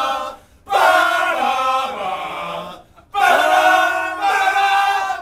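A small group of people singing together in unison, loud with long held notes, in two phrases with a short break about three seconds in.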